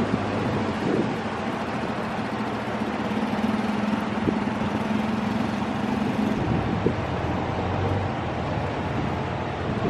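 Small 2.5 hp outboard motor running steadily; its pitch drops about two-thirds of the way in.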